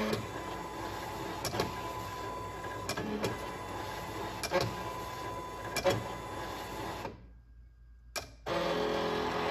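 Silhouette Cameo cutting machine used as a pen plotter, its motors running steadily as the pen carriage and mat rollers move, with a sharp click about every second and a bit. It stops about seven seconds in, clicks once, then runs again for about a second near the end as the job finishes and the carriage returns to its home position.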